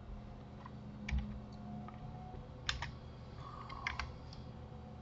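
Several scattered, irregular computer keyboard key clicks, a couple of them in quick pairs, over a low steady hum.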